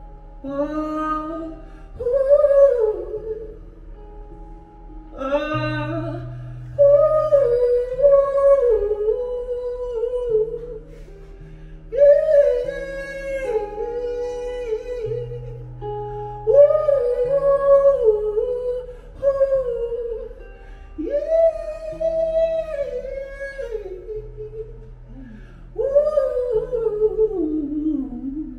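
Live solo performance: a singer's wordless vocal, humming and sliding through long phrases a few seconds apart, over held electric guitar notes.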